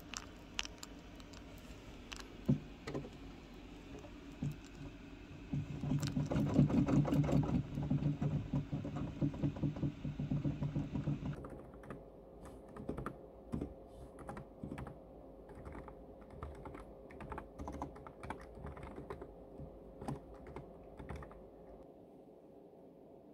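Typing on a computer keyboard: runs of key clicks, densest and loudest from about six to eleven seconds in, then sparser.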